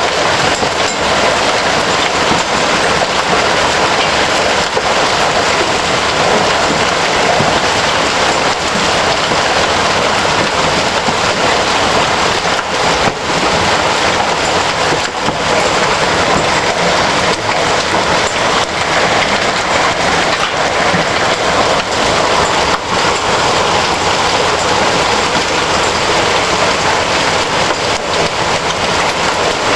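Hailstorm: hailstones and heavy rain pelting down in a dense, steady clatter of countless small impacts.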